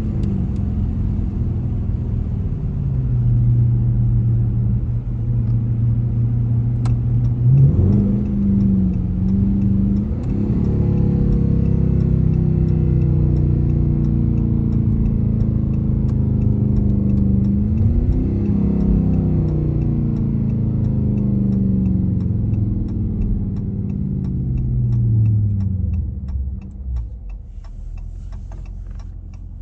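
Dodge car's engine heard from inside the cabin while driving. Its pitch climbs twice as it accelerates, then falls as the car slows near the end. A turn signal ticks steadily through the second half.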